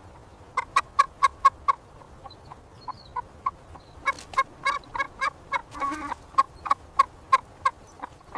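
A hen clucking: a run of short, quick clucks, about four a second, that thins out for a couple of seconds and then picks up again in a longer run.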